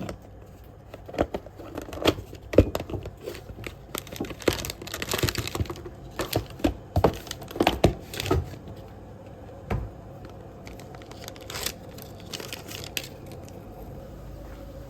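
Food wrapping being crinkled and torn open: a quick run of rustles and crackles for about eight seconds, then only a few single crackles over a faint steady room hum.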